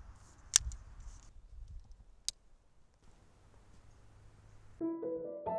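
Sharp metallic clicks from handling a Dutch Model 1891 revolver's action: one loud click about half a second in, a few faint clicks after it, and another sharp click a little over two seconds in. Music with held notes comes in near the end.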